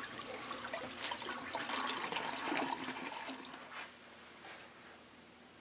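Toilet flushing, the rush of water dying away about four seconds in, with a couple of light knocks.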